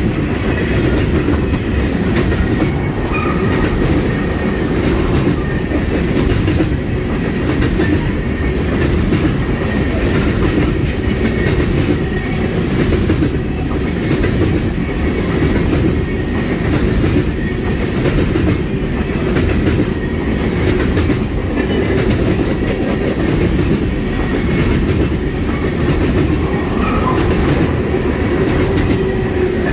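A train of oil tank cars rolling past close by: a steady, loud rumble of steel wheels on the rails that runs on without a break.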